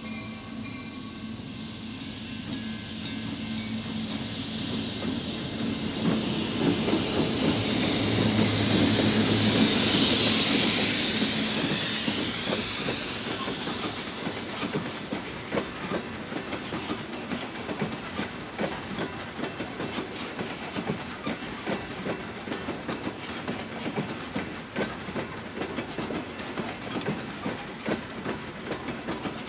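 A diesel locomotive approaches and passes close by, loudest about ten seconds in. A long string of ballast hopper cars follows, rolling past with a rhythmic clickety-clack of wheels over the rail joints.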